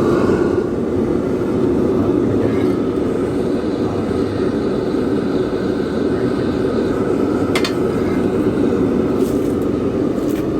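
Electric air-blower fan forcing air up through the pipe into a homemade forge's charcoal fire pot, a steady rushing roar at constant level. A couple of faint clicks come in the second half.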